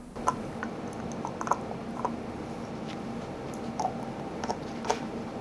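A dog gnawing on a hard chew bone: irregular crunching, clicking bites, some sharper than others, over a steady low room hum.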